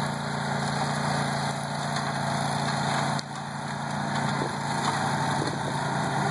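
Rotair Speedy Cutter 1200 remote-controlled tracked flail mower's engine running steadily, dipping briefly about three seconds in.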